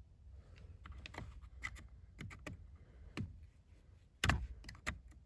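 Small plastic clicks and rattles of wiring connectors being worked loose and unplugged from a steering column clock spring, with a couple of louder clacks near the end.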